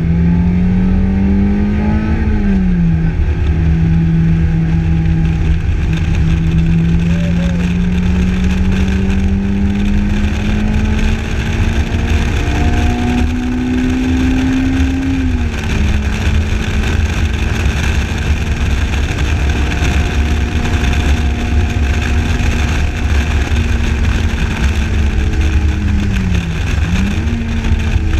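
Lotus Elise engine under load on track, heard from inside the open cockpit over a heavy low rumble of wind and road. The engine note climbs and drops sharply a little over two seconds in, climbs slowly again, steps up and then drops sharply about halfway through, runs fairly steady, and briefly dips and recovers near the end, the pattern of gear changes and lifts through corners.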